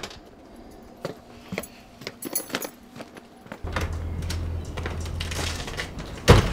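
Keys jingling and small door clicks, then a steady low hum comes in about halfway through, and a loud thump near the end.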